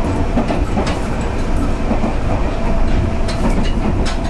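Moving train heard from inside the passenger carriage: a steady low rumble of wheels on the track with occasional clicks, and a steady tone that comes in about halfway through.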